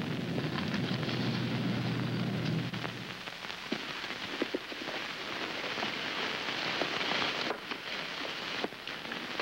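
A low steady hum for about three seconds, then crackling and rustling as a bundle of clothes is rummaged through by hand, with scattered small clicks.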